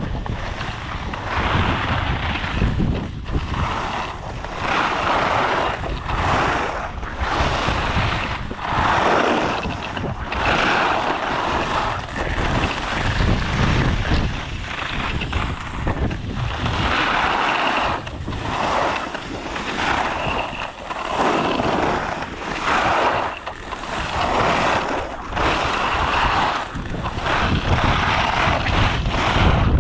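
Skis scraping and carving on hard-packed groomed snow, the hiss swelling with each turn about every second or two, over wind buffeting the camera's microphone.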